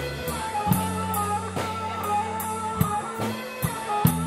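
Live rock band playing: an electric guitar melody over drums, with low held bass notes and regular cymbal and drum hits.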